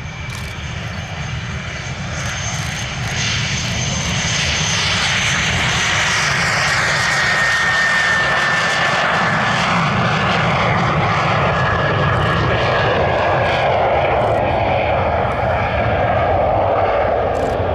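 Morane-Saulnier MS.760 Paris's twin Turbomeca Marboré turbojets at high power on the takeoff run: a high whine over a loud roar that builds over the first few seconds, then holds, the whine slowly falling in pitch as the jet goes past.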